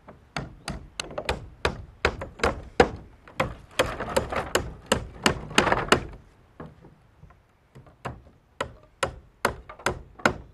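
Hammer driving nails through larch wood shingles on a roof: a run of sharp wooden taps, about three or four a second. They stop for about two seconds past the middle, then start again.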